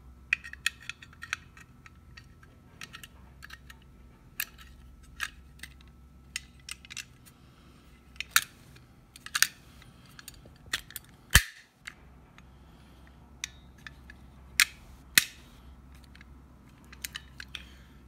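A newly cut bit key being worked in an antique Sargent mortise lock: scattered sharp metallic clicks and clacks as the key goes in, catches and turns against the lock's parts, the loudest about eleven seconds in. The key is not yet turning freely; its bit rubs on the edges against the wards.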